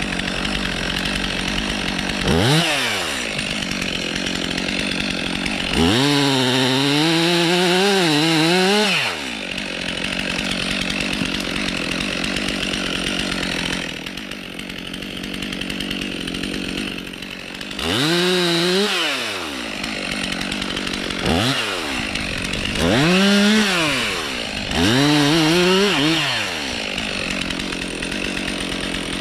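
Stihl MS 362 C two-stroke chainsaw idling and revving up six times, each time briefly before dropping back to idle. The longest burst comes about six seconds in and lasts some three seconds, its pitch wavering under load as the chain cuts through birch.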